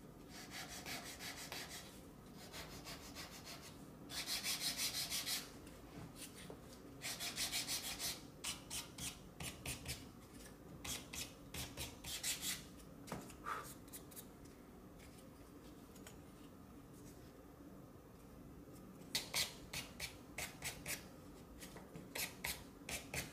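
Sandpaper wrapped around a wooden block rubbed along the edges and corners of thin wooden boards to round them off. A few longer rubbing strokes come first, then runs of short quick strokes, with a pause of several seconds in the middle.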